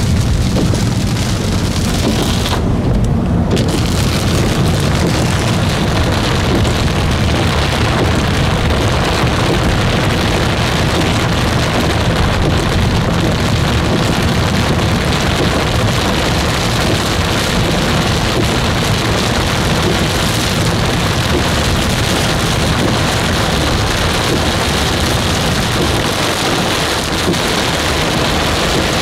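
Heavy rain pouring down, a loud steady hiss with a low rumble underneath.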